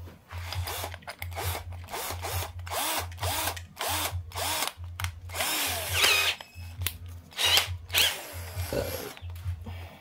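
Red cordless drill with a twist bit, its trigger squeezed in a series of short bursts, the motor speeding up and winding down each time.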